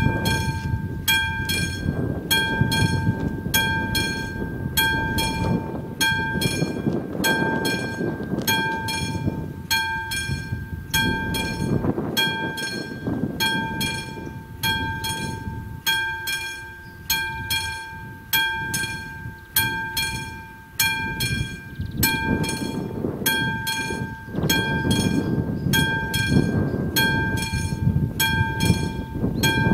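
Classic mechanical level-crossing bell ringing in an even rhythm, a little under two strikes a second, each strike leaving a ringing tone: the crossing is active, warning of an approaching train. A low noise rises and falls underneath.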